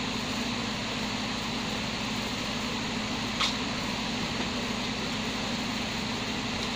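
A steady whirring hum and hiss, with a single short click about three and a half seconds in.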